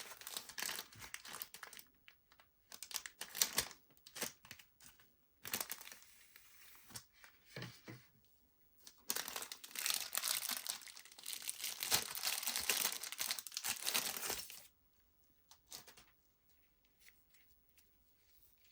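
Knife packaging being unwrapped and handled: crinkling and rustling in short irregular bursts, then a longer spell of continuous crinkling that stops about three-quarters of the way through.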